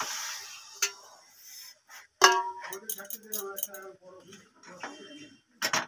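Hot water poured from an aluminium pot into a pan of dry-fried chicken curry on a gas stove, a hissing rush for about the first second. Then a sharp ringing metal clang a little after two seconds, followed by a metal spatula clinking and scraping in the pan.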